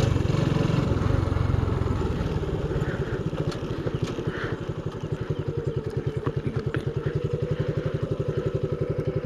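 Motorcycle engine idling with an even pulsing beat of about ten a second. It is louder at first and settles lower over the first few seconds.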